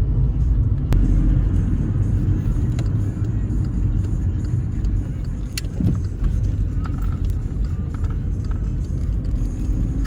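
Steady low rumble of engine and road noise inside a moving car's cabin, with a sharp click about a second in and a few light ticks.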